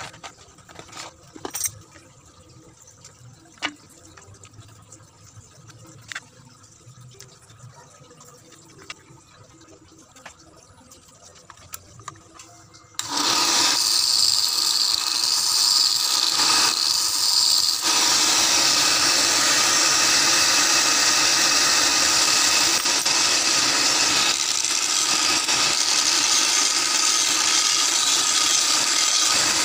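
Homemade mini electric belt sander: a few faint handling clicks, then about halfway through its small motor is switched on and runs with a steady, loud whir of the abrasive belt. The sound changes a few seconds after start-up, and a plywood board is held against the belt near the end.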